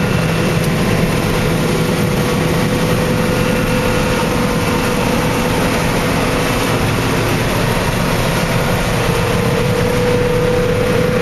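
John Deere 9650 STS combine running steadily while harvesting soybeans, heard from inside the cab: an even engine and machinery drone with a steady whine.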